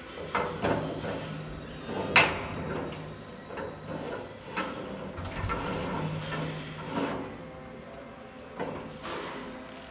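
Brass ring nut on the threaded steel mincer outlet of a mixer-grinder being handled and turned, metal scraping and rubbing with a series of sharp clanks and knocks, the loudest about two seconds in.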